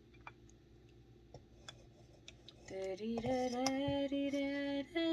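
A few faint, scattered clicks of a plastic rice paddle against a plate, then, about halfway through, a woman sings a few long held notes that are louder than the clicks.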